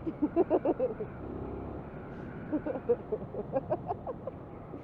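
Suzuki TU250X motorcycle's single-cylinder engine running at steady road speed, heard from the rider's position, with two short runs of a person's voice over it.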